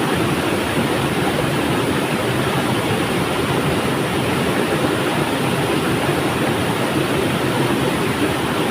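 River water flowing in a steady, even rush with no change.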